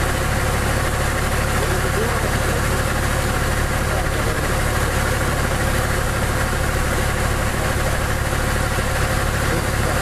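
Irrigation boom spraying water: a steady hiss of spray over a constant engine-like drone that does not change.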